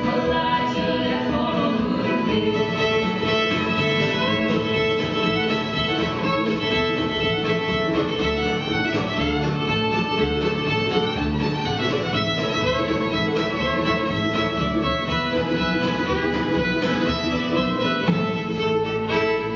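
Live acoustic country band playing an instrumental break, the fiddle leading over strummed guitar, mandolin, bass and a steady drum beat.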